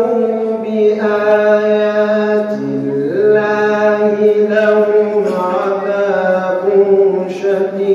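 A young man's voice reciting the Qur'an in melodic tajwid style, drawing out long held notes that bend and turn in ornamented runs, with a steady low tone underneath.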